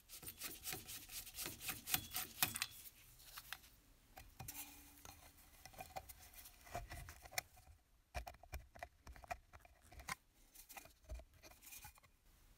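Small hand tool scraping and picking at the end of a brass tube from an antique toy steam engine, in a run of short, irregular scraping strokes and clicks with brief pauses.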